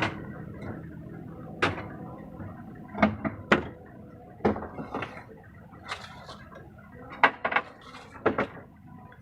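Irregular knocks and clatters of hard objects being handled and set down, about a dozen separate hits, some in quick pairs and triplets.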